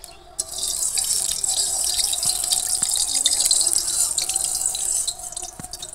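Hot cooking oil sizzling in a wok, a steady hiss that starts suddenly about half a second in and dies down near the end.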